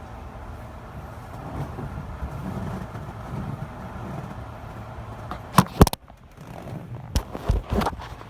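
Steady low rumble like vehicle or road noise. About five and a half seconds in come two sharp knocks, the background cuts out briefly, and a few more knocks follow near the end.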